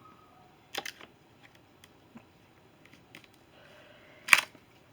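Box and packaging of a soldering iron kit being handled: scattered light clicks and taps, with one sharper knock about four seconds in.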